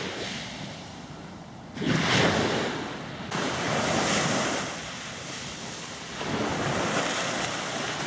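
Sea waves breaking on a beach: the wash of the surf swells up and dies away about three times.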